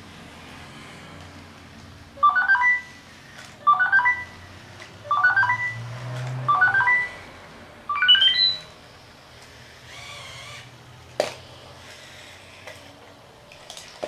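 Sony Aibo ERS-210 robot dog playing its electronic sound effects: five short phrases of quickly rising beeps, about a second and a half apart, over a faint low motor whir as its legs move. A single sharp click comes about eleven seconds in.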